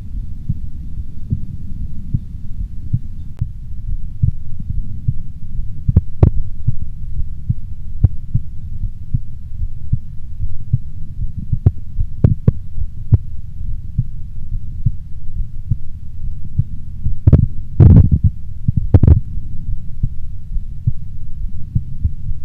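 A human heartbeat heard through a stethoscope on the chest: a steady run of low, pulsing thuds. A few sharp clicks break in, and the loudest knocks and rubs come in a cluster a little past halfway through the last third.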